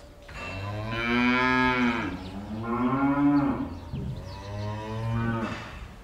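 Cow mooing: a long, drawn-out call of about five seconds that rises and falls in pitch in three connected parts.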